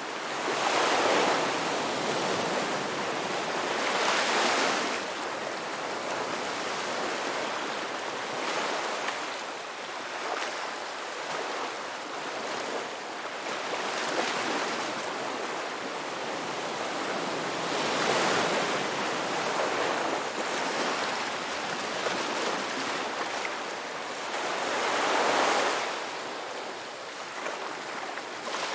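Sea waves washing onto a shore in a continuous surf wash, swelling louder with each breaking wave: about a second in, around four seconds, around eighteen seconds and around twenty-five seconds.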